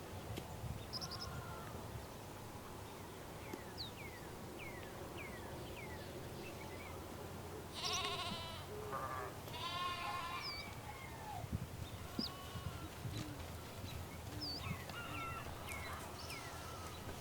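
Goat bleating twice, a wavering call about halfway through and a second one a couple of seconds later, over short high chirps scattered throughout.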